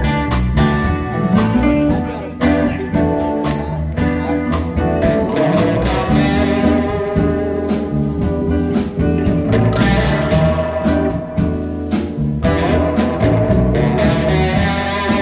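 Live rock band playing an instrumental passage: electric guitars and electric bass over drums keeping a steady beat.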